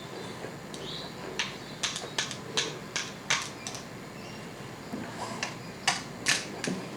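Irregular sharp clicks and taps, about ten in quick succession, then a short pause, then a few more.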